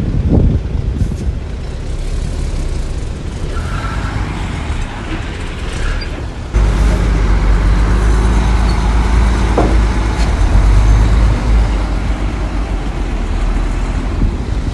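Heavy diesel earthmoving machinery (bulldozer and dump trucks) running with a steady low engine drone that suddenly gets louder about six and a half seconds in.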